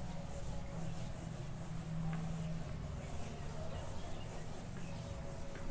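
Eraser rubbing across a whiteboard in repeated wiping strokes.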